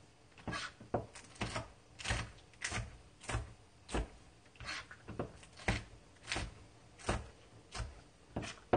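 Chef's knife slicing green chili peppers on a plastic cutting board: a steady run of blade knocks against the board, about three cuts every two seconds.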